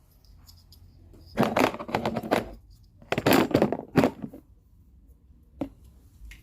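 Two bursts of clattering and rattling, about a second each, from ring light and tripod parts being handled during assembly, then a single sharp click near the end.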